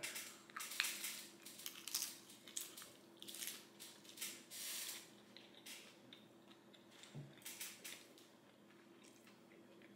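Chewing of a loaded nacho: a crispy corn tortilla chip crunching between the teeth in a quick run of crunches that die away near the end.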